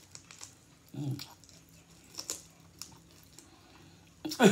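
Mouth noises of someone biting and chewing on a tough, gristly steak: scattered small wet clicks and smacks, with a short low grunt about a second in. Near the end a loud voiced outburst with falling pitch.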